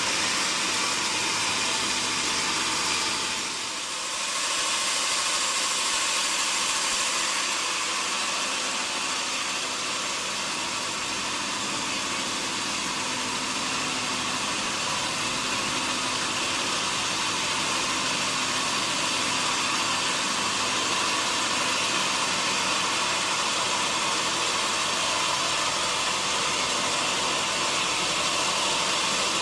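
Sawmill machinery running steadily, a dense mechanical hiss and hum, with a brief drop in level about four seconds in.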